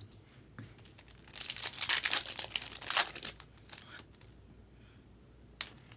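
Foil wrapper of a trading-card pack crinkling and tearing as it is opened, in a loud stretch of about two seconds, with lighter rustling around it and a short sharp click near the end.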